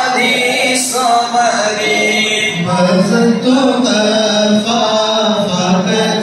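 Male voices chanting a melodic mawlid recitation, singing without pause with long held, wavering notes.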